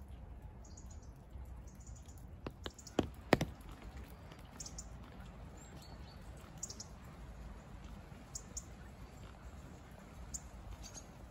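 Quiet wet-weather outdoor ambience with a low rumble, sparse short high bird chirps, and four sharp taps about two and a half to three and a half seconds in, the last the loudest.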